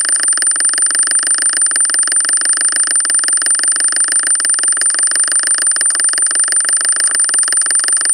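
A steady high-pitched electronic whine over an even, fast-pulsing buzz, unchanging throughout.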